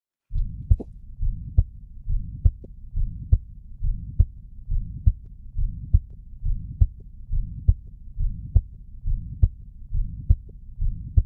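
Recorded heart sounds of a ventricular septal defect: regular heartbeats at about seventy a minute, each beat followed by a continuous low murmur filling the gap between beats. This is the harsh pansystolic murmur of a VSD.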